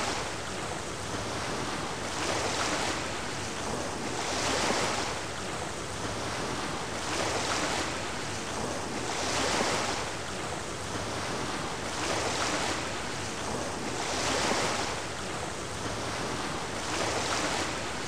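Wind rushing over the microphone of a moving motorcycle: a steady noise that swells and eases every two seconds or so.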